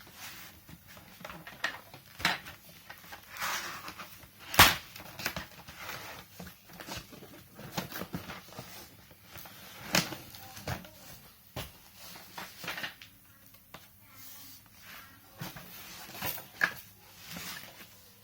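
Handling of a plastic toy washing machine and its packaging: irregular rustling with sharp plastic clicks and knocks, the loudest a hard knock about four and a half seconds in and another near ten seconds.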